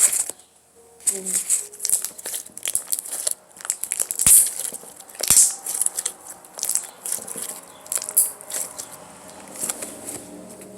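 Thick, slightly overactivated glitter glue slime being squished and stretched by hand, giving irregular sticky clicks and crackles.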